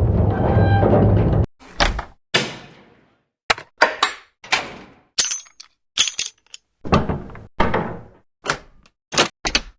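A run of stock Foley sound effects played one after another: a looping clunk and squeak for the first second and a half, then more than a dozen short separate hits. These are door-switch and keyboard clicks and metal latch clicks, jingles, thumps and slides, some with a short fading tail.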